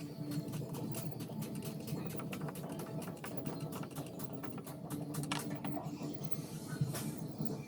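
Irregular light clicks and taps, many in quick succession, over a steady low hum.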